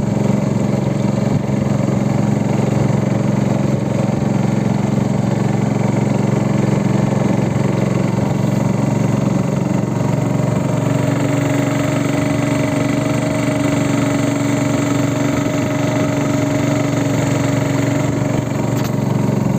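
Boat engine running steadily under way, a low even drone; about halfway through a higher whining tone joins in and holds.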